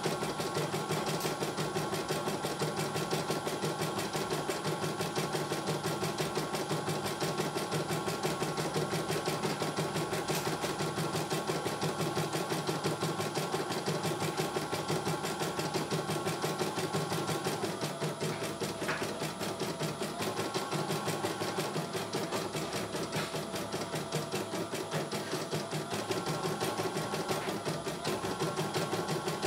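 CNY E900 computerized embroidery machine stitching a design: a rapid, even run of needle strokes over a steady motor tone. The tone drops to a lower pitch for several seconds past the middle, then returns.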